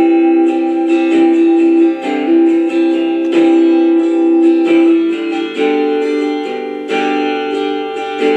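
Rock song with strummed guitar chords playing on FM radio through a clock radio's small speaker, the chord changing about five seconds in.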